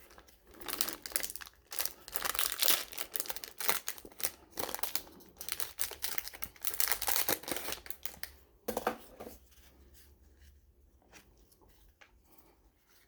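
Sealed baseball card pack being torn open by hand, the wrapper crinkling and tearing in a quick run of crackles that dies down after about nine seconds to faint handling noise.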